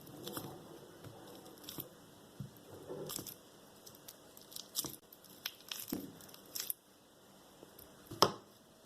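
Food being prepared by hand with kitchenware: rustling, tearing and soft squishing with scattered light taps, and one sharp knock about eight seconds in, the loudest sound.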